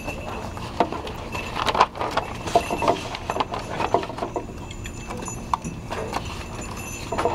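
Irregular close-up clicks and knocks, in clusters rather than a steady rhythm: handling noise of objects bumping and moving right by the microphone.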